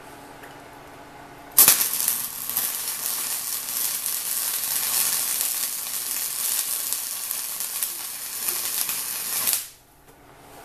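Wire-feed MIG welder running a weld bead on a steel frame rail: the arc starts suddenly about a second and a half in, hisses and crackles steadily for about eight seconds, then cuts off abruptly near the end.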